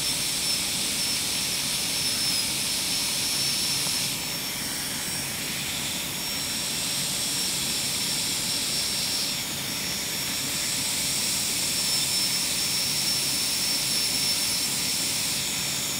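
High-speed air-turbine dental handpiece with a pear-shaped bur, running and cutting the occlusal surface of a model molar for a cavity preparation. It gives a steady high whine over a hiss, which dips briefly about four seconds in.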